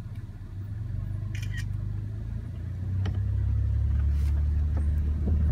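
Car engine running with a steady low rumble heard from inside the cabin, growing louder about three seconds in, with a few faint clicks over it.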